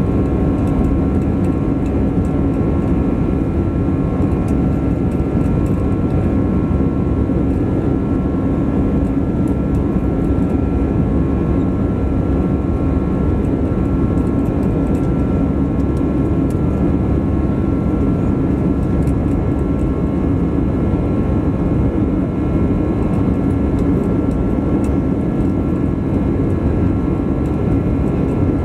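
Steady jet engine and airflow noise heard from inside the cabin of an Airbus A320 in flight after takeoff. It is a broad, even rumble with a low hum and a few faint, steady whining tones above it.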